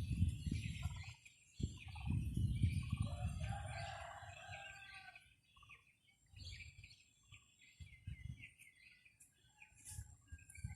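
Strong wind buffeting the microphone in gusts, heaviest in the first five seconds. Under it, small birds chirp, and a fuller bird call sounds from about two to five seconds in.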